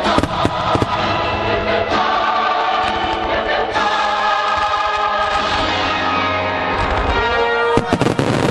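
Choral music accompanying a fireworks show, with fireworks bursting over it: sharp bangs just after the start and a dense cluster of bangs near the end.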